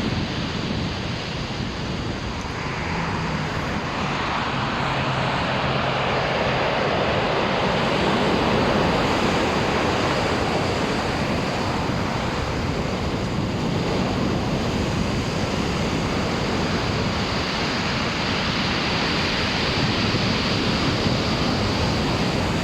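Black Sea surf: waves breaking and washing continuously, the roar rising and easing in long swells, with wind on the microphone.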